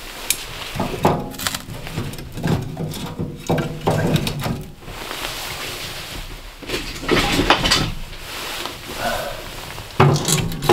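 Split firewood knocking and clattering as pieces are loaded into the firebox of a small steel wood stove, in several bursts of knocks with short pauses between them.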